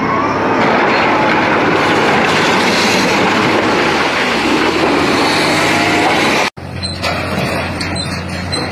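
A wheel loader's diesel engine works under heavy load amid a loud, continuous grinding and scraping of rock and metal. This cuts off sharply about six and a half seconds in, giving way to the quieter, steady hum of an excavator's engine.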